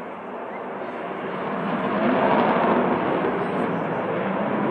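Jet engine noise from a Sukhoi Su-35 fighter's twin afterburning turbofans in a display flight, a steady rushing sound that grows louder about two seconds in, then holds.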